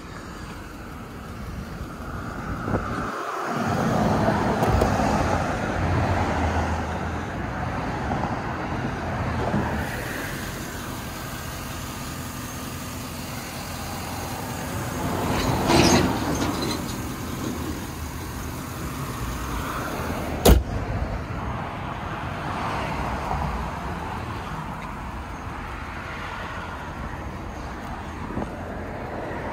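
Steady car and road-traffic noise, louder for a moment about sixteen seconds in, with one sharp click about twenty seconds in.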